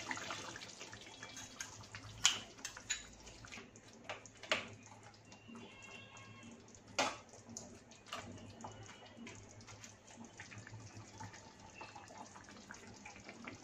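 A liquid is poured into a thin curry gravy in an aluminium kadhai and stirred with a metal spoon, with a few sharp clinks of spoon on pan, the loudest about 2, 4.5 and 7 seconds in. Between and after them, faint wet sounds of the gravy simmering.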